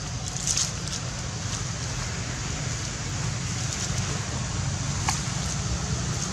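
Steady low wind rumble on the microphone, with a few short, high crackles on top, the loudest about half a second in and another about five seconds in.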